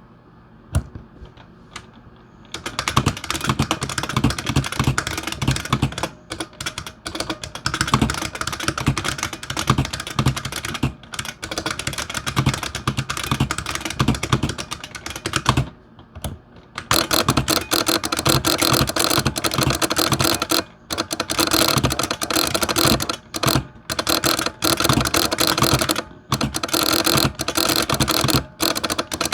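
Fast typing on an IBM Model F buckling-spring keyboard, a rapid stream of sharp key clicks. After a short pause about halfway, the typing resumes with the keyboard's solenoid switched on, adding a clunk under each keystroke.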